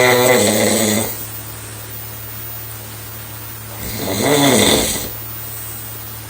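A sleeping girl snoring: one snore trails off about a second in, and a second snore about four seconds in rises and falls in pitch over about a second. A steady low hum runs underneath.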